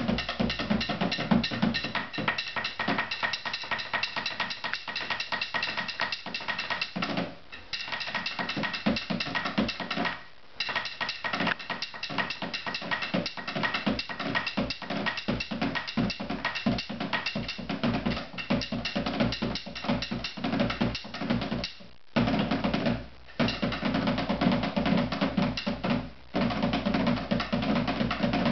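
Large hide-headed hand drum beaten fast and continuously with a drumstick and a bear leg bone, a dense run of strokes broken by a few brief pauses.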